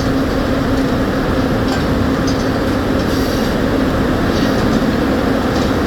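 Sawmill machinery running: a loud, steady mechanical din with a constant low hum under it and a few faint ticks.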